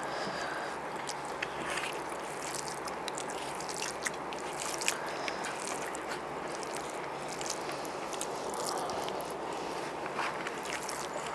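Eating by hand: fingers mixing and scooping biryani rice on banana leaves, with chewing, and scattered small clicks and rustles over a steady background hiss.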